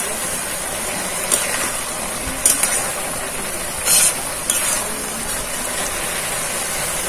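Metal spatula stirring ash gourd curry in a metal pan, with a steady sizzle as the water released by the gourd cooks off. A few sharper scrapes of the spatula against the pan break through the sizzle.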